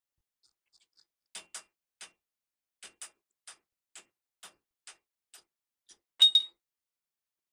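Hammer tapping a steel punch against a heavy truck's wheel hub: light metal taps about two a second, ending with two louder strikes that ring briefly.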